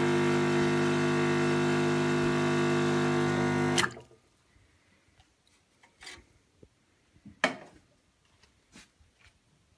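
Bezzera BZ99 espresso machine's pump running with a steady buzz while a shot pours, then switched off with a click about four seconds in. A few faint knocks and clicks follow, with one sharper knock near the end.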